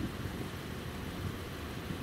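Steady low engine rumble with no distinct event: an even background drone.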